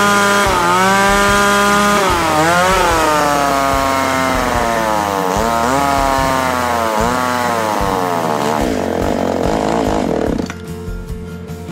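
Tanaka PMS-330A two-stroke top-handle chainsaw running at high revs. Its pitch dips and recovers several times as the throttle is worked, then sags in long falling glides before the sound cuts off about ten seconds in. It is running again after a no-start fault, which a simple adjustment cured.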